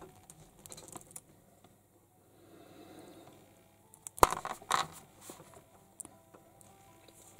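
Small hard plastic toy-figure parts being handled: a few light clicks, a soft rustle, then a sharp click about four seconds in followed by a quick run of clicks and clatter.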